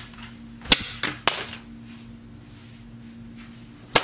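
A sharp snap about three-quarters of a second in and two lighter clicks soon after, over a low steady hum; near the end a loud sharp hit as a thrown object lands close by.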